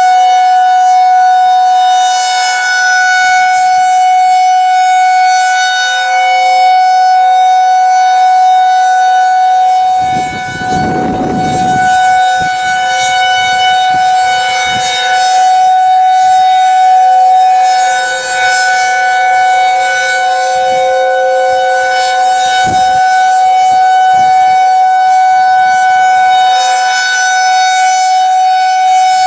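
Federal Signal 2001-SRNB outdoor warning siren sounding its steady alert tone, one unchanging pitch that swells and fades in loudness every few seconds. A brief low rumble comes about ten seconds in.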